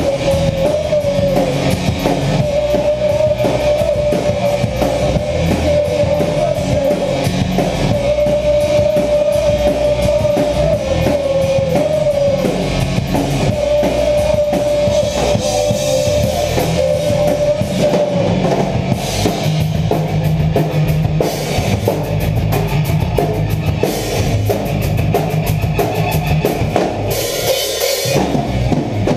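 Horror punk band playing live: electric guitar and drum kit, heard up close to the guitar. A held, wavering high note runs through the first half and stops about eighteen seconds in.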